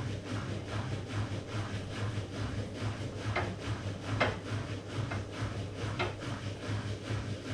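Miele PW6055 professional washing machine running in its final spin, a steady low hum that pulses quickly and evenly. Four brief rubbing swishes come about a second apart in the middle, as from the drum turning over the laundry.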